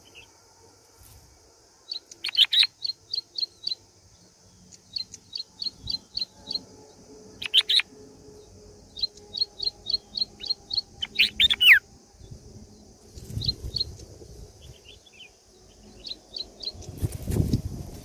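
Bulbuls chirping at the nest: quick runs of short, high chirps, five to seven at a time, with a few louder sweeping calls between them. A steady high hiss lies underneath. A low rumble comes near the end.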